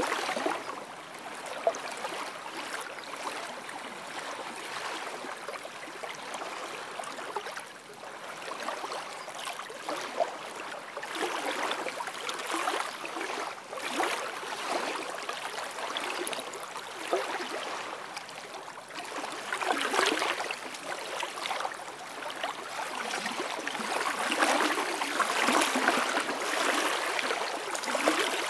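Small waves lapping on a sandy lakeshore, washing up and draining back in uneven surges, louder over the last few seconds.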